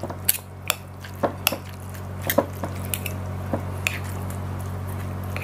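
Metal spoon and fork clinking and scraping on a plate in irregular clicks as rice is mixed with cassava-leaf curry and sambal, over a steady low hum.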